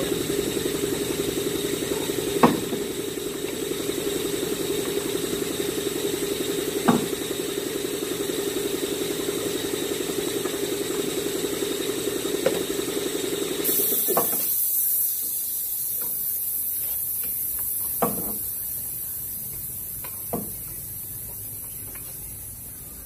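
A few separate metal clunks as a new CV axle's splined outer end is worked into the wheel hub. Under them a machine drones steadily, then cuts off about two-thirds of the way through, and a hiss of air starts loud and fades away.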